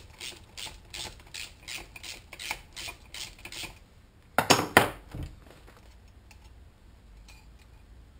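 Socket ratchet clicking in a steady run, about three clicks a second, as it loosens the 12mm cylinder head nuts on a GY6 scooter engine. Two louder metallic knocks follow about four and a half seconds in.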